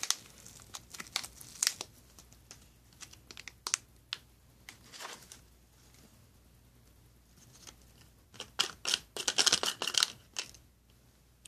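MRE food packaging crinkling and rustling as it is handled: scattered short rustles and clicks, then a denser burst of crinkling about nine seconds in.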